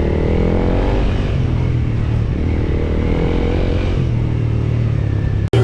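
Vehicle engine running, its pitch rising and falling a little with the throttle, cut off abruptly near the end.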